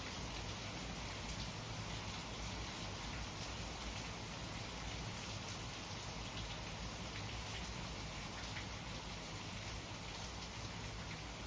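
Steady rainfall, with scattered individual drops ticking on surfaces.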